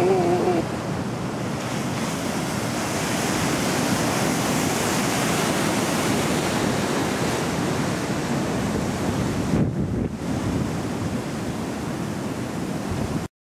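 Ocean surf breaking and washing in a steady rush, with wind noise on the microphone. The tail of a falling, pitched sound fades out at the very start, and everything cuts off abruptly near the end.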